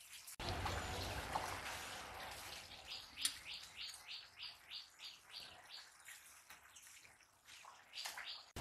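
A metal utensil scraping in a quick run of about ten short strokes, roughly three a second, over a faint steady hiss.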